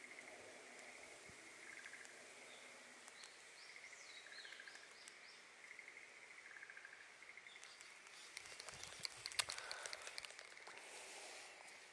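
Quiet pond-side ambience: a short buzzy call repeats every second or two, and a bird chirps briefly a few seconds in. Near the end comes a cluster of sharp clicks and rustling from the fishing rod being handled, the loudest sound here.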